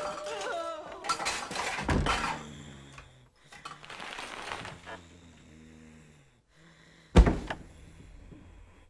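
Rustling and knocking as a man pushes through a door and a plastic strip curtain, with low moans from him. About seven seconds in comes one loud thump, the loudest sound, as he drops to the floor.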